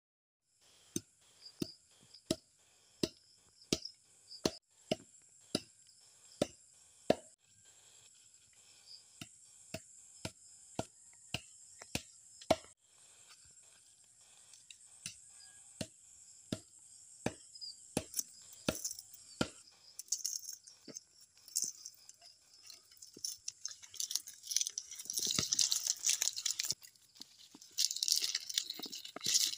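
Dull wooden knocks at a steady pace of about one and a half a second as stakes are driven into the ground with a log, over a steady high hiss, likely insects. The knocks stop after about 19 seconds and give way to louder rustling and crackling as green leaf strips are handled and tied around a wooden pole.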